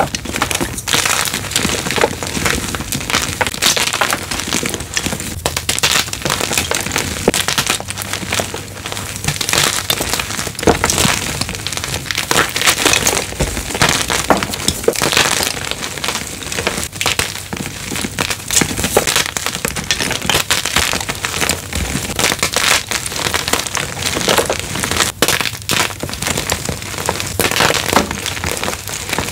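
Blocks of gym chalk (magnesium carbonate) crunching and crumbling as they are crushed, a dense, unbroken stream of crackles.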